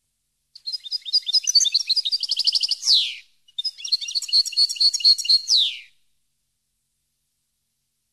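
European goldfinch singing two quick phrases of short, high, rapidly repeated notes, each ending in a falling sweep, with a brief pause between them.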